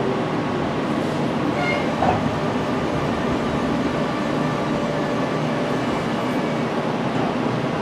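Meitetsu 6000 series electric train heard from inside the carriage, running on the rails with a steady rumble. A brief thin squeal and a small knock come about two seconds in.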